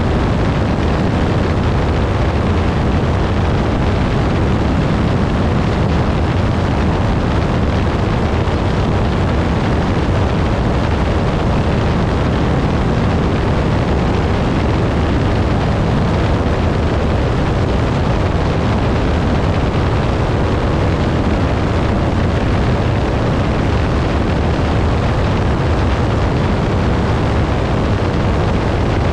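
Piper Pawnee tow plane's piston engine and propeller running steadily at high power while towing a glider, a loud even drone with no change in pitch.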